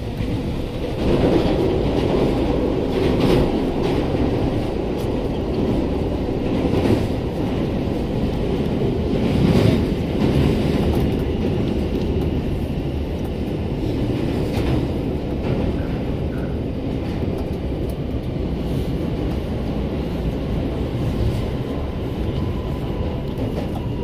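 Train running on rails: a steady rumble of wheels on track with a few sharp clacks over rail joints, as a train car passes close alongside.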